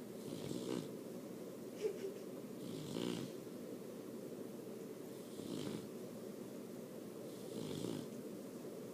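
A sleeping puppy snoring: four slow rasping breaths, one about every two and a half seconds. A brief sharp little sound comes about two seconds in.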